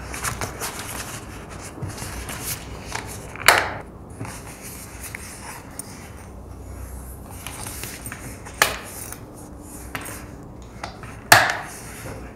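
Hands handling a leather long wallet: soft leather rubbing and shuffling with cards slid in and out, broken by three sharp clicks, about a third of the way in, two-thirds in and near the end.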